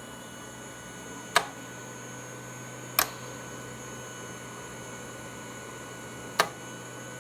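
VentaMAX mechanical ventilator running with a steady hum and three sharp clicks: two about a second and a half apart, then the first again five seconds later. The clicks repeat on a regular cycle of about 12 per minute, the ventilator's breathing rhythm.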